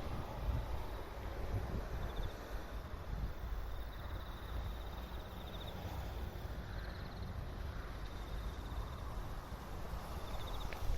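Insects trilling in short pulsed bursts, several times over, above a steady low rumble.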